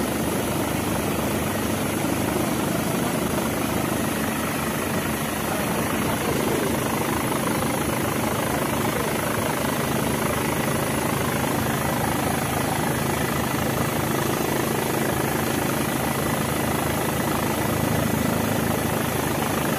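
Steady cabin noise of a low-flying aircraft, most like a helicopter's engine and rotor, heard from on board with a fast flutter underneath.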